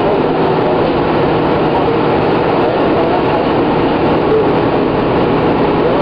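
A New Flyer D40LFR diesel transit bus under way, heard from inside: steady engine and road noise with faint steady whining tones running through it.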